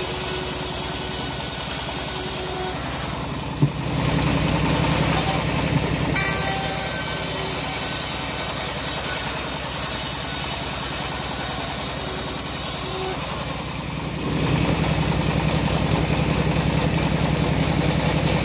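A homemade band sawmill runs steadily as teak heartwood is sawn into beams on it. Its low running sound gets heavier about four seconds in and again about fourteen seconds in, with a single sharp knock just before the first change.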